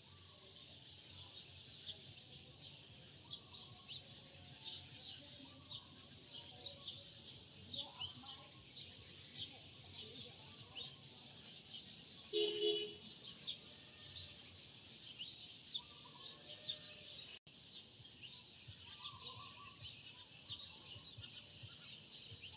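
Many small birds chirping continuously in the background, with a short pitched note about halfway through.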